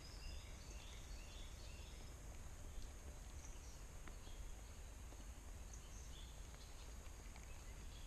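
Faint outdoor creekside ambience with a steady low rumble, and a few faint, short, high chirps from a small bird in the first couple of seconds.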